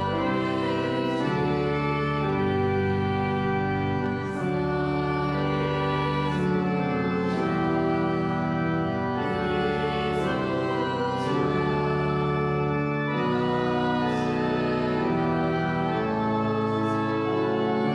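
Church organ playing a slow hymn in sustained chords, the chords changing every second or two.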